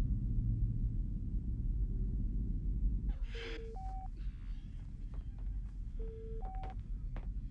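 A deep, steady starship rumble, then sickbay ambience about three seconds in: a short breathy gasp, then a medical monitor's two-note electronic beep, a lower tone followed by a higher one, repeating about every two and a half seconds over a low hum.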